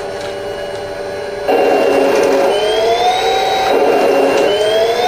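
Heng Long TK 6.0 sound unit in an RC Challenger 2 tank playing its simulated M1 Abrams gas-turbine engine sound through the tank's small speaker. A steady turbine whine gets louder about one and a half seconds in, then rises in pitch twice, dropping back in between.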